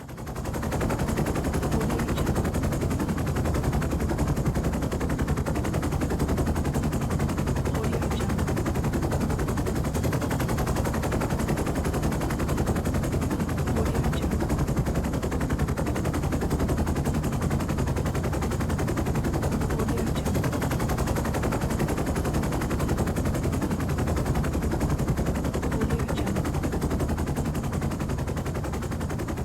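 Helicopter rotor blades chopping in a fast, steady beat over engine and turbine noise. The sound fades in over the first second and eases off slightly near the end.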